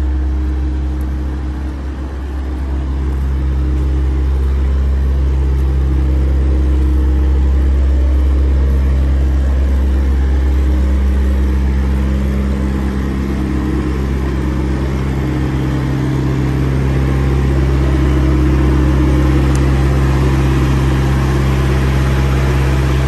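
Semi-truck diesel engine idling with a steady low drone.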